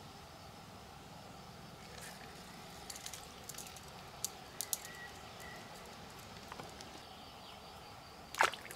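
Quiet stream-bank ambience with a faint insect hum and a few light clicks in the middle. Near the end comes a short, loud splash as a small hooked fish is lifted from the water.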